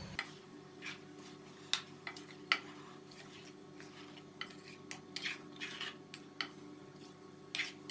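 Wooden spoon stirring chunks of tinda (apple gourd) and chicken in a metal wok, with irregular scrapes and knocks against the pan. A faint steady hum runs underneath.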